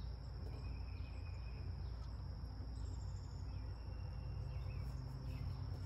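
Engine oil pouring from a 5-quart jug through a funnel into a car's oil filler neck, the jug tipped sideways so the oil runs in without splashing, over a steady high-pitched whine in the background.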